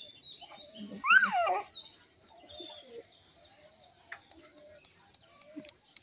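Small birds chirping again and again in the background, short high chirps throughout. About a second in comes one loud, short squeal that rises and then falls in pitch.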